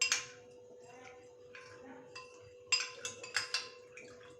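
Spoon clinking against a bowl while stirring a thin cornflour, water and chilli-powder slurry: sharp clinks at the start, a few light taps in the middle, and a quick run of clinks about three seconds in.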